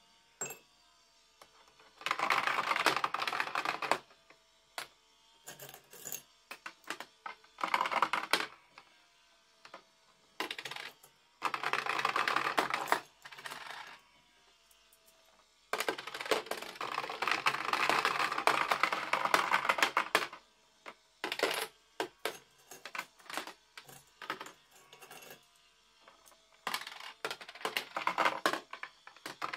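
Coins dropped into toy Tipping Point coin-pusher games, clattering down the playfield and onto the pusher shelves. There are several bursts of rapid metallic rattling, each lasting one to four seconds, with single clicks in between.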